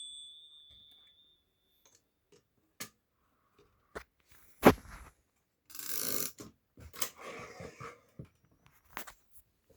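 The Erika S typewriter's carriage bell ring fades out over the first second. Then come scattered mechanical clicks and knocks as the typewriter's mechanism is handled, with one loud knock about midway and a brief scraping rustle soon after.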